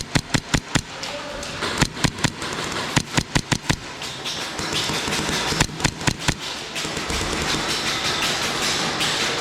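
Airsoft guns firing in several rapid bursts of sharp clicking shots, with pauses between bursts.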